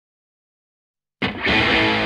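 Silence, then about a second in a guitar-led music track begins suddenly with a sustained chord.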